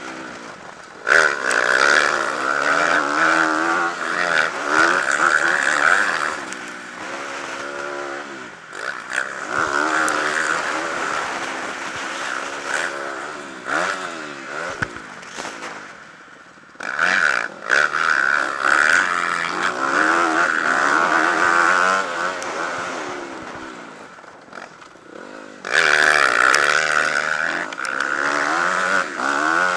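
Motocross dirt bike engine heard on board, its revs climbing and falling over and over as the rider accelerates, shifts and backs off for corners. Hard bursts of throttle come about a second in, about seventeen seconds in and near the end.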